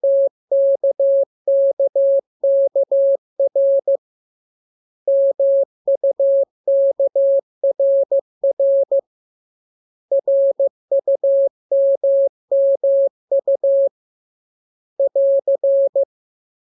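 Morse code (CW) practice tone: a single steady beep keyed on and off in dots and dashes, sent in groups of characters with pauses of about a second between groups. The last short group ends near the end.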